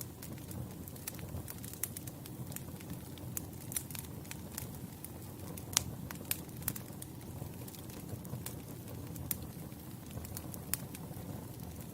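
Campfire burning: a steady low rumble of flames with frequent, irregular sharp crackles and pops from the burning wood, one louder pop a little before the middle.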